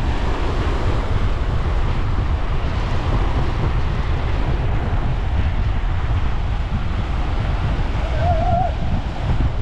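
Sea surf breaking and washing up the beach in a steady rush, with wind buffeting the microphone in a low rumble.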